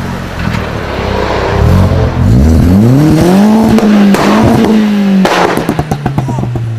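Modified car engine idling, then revved hard and held high for about two seconds. It drops off with a loud bang and a quick string of exhaust pops and crackles as the revs fall back toward idle.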